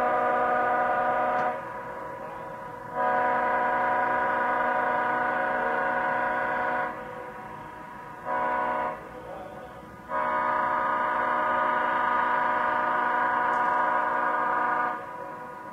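Leslie S5T five-chime locomotive air horn sounding its chord in blasts. The first blast ends about a second and a half in, then comes a long blast, a short one and another long one, the rhythm of a grade-crossing signal.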